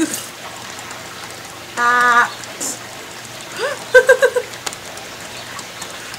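A woman's high voice: a short held vocal sound about two seconds in, then a rising cry breaking into quick giggling laughter about four seconds in, over a faint steady hiss.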